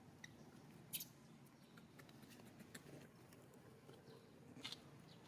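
Faint background hum broken by a few short, sharp, high-pitched clicks or squeaks. The loudest comes about a second in and another near the end.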